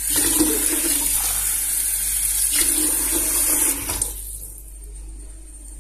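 Kitchen tap running water into a glass, shut off sharply about four seconds in.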